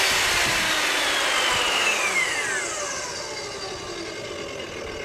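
Skil TS6307-00 10-inch jobsite table saw ripping a strip of 3/4-inch MDF, then switched off about two seconds in, its motor winding down in a falling whine.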